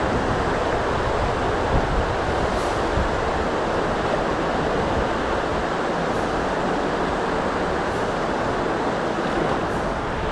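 Steady rushing of the River Scavaig's falls, white water pouring over rock slabs into the sea loch, with a low rumble underneath.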